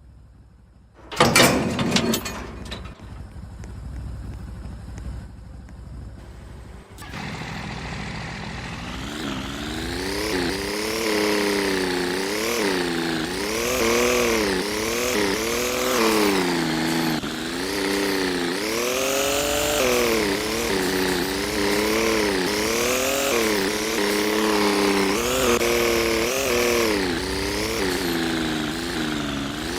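An engine: a loud burst about a second in, then from about seven seconds in it runs with its pitch repeatedly rising and falling, as with revving or changing load.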